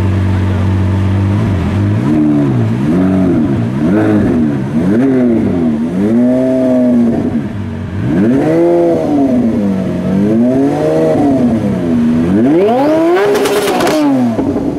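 Twin-turbo 6.5-litre V12 of a GAD-tuned Lamborghini Aventador LP700-4, revved while standing. It idles steadily, then gives a series of about eight throttle blips, each rising and falling. The last and highest rev, near the end, breaks into sharp crackles before it drops back to idle.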